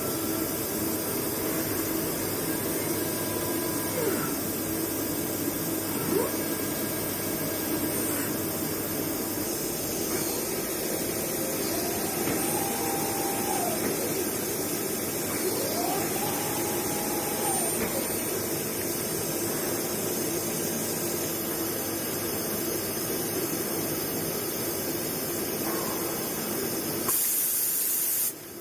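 Mazak Integrex 100 IISY CNC turn-mill centre running with a steady hissing machine noise. A whining tone rises, holds and falls twice midway through. Near the end there is a brief louder hiss, then the noise cuts off suddenly.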